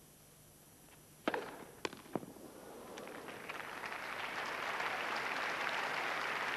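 Tennis racket hits on a grass court: three sharp strikes within about a second, starting a little over a second in (the serve and the rally). Then crowd applause builds and holds as the point ends.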